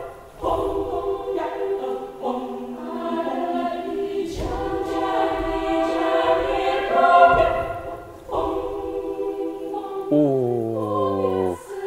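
Large mixed choir singing a cappella, holding chords of several voices with no instruments, the singers' own voices standing in for the accompaniment. About ten seconds in, the voices slide downward together.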